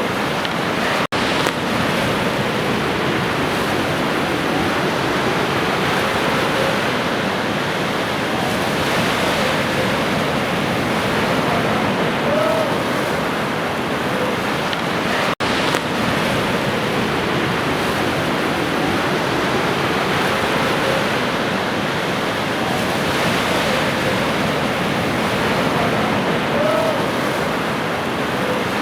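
Sea waves washing ashore in a steady rush of surf, with a few faint short bird calls now and then. The sound cuts out for an instant about a second in and again about halfway through, where the recording loops.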